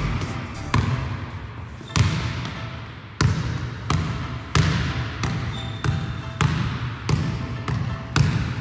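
Basketball dribbled on a hardwood gym floor: a string of bounces at an uneven pace of about one to two a second, each ringing out in the hall's echo.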